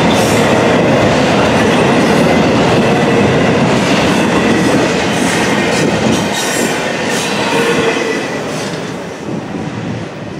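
Double-stack intermodal freight cars rolling past close by, their steel wheels rumbling on the rails with a thin steady squeal over the top. The noise drops off over the last couple of seconds as the end of the train goes by.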